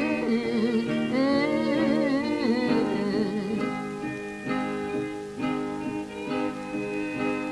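Background music: acoustic guitar picking, with a wavering, sliding melody line over it for the first three seconds or so, then plucked guitar notes alone.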